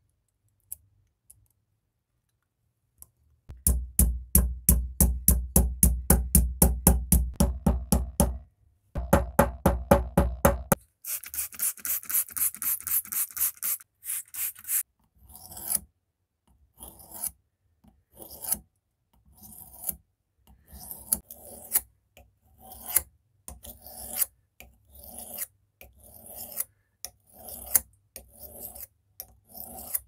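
Rapid, even rubbing strokes at about four a second. Then the steel blade of a pocket knife is drawn back and forth over a wet natural sharpening stone in uneven strokes: the knife being sharpened.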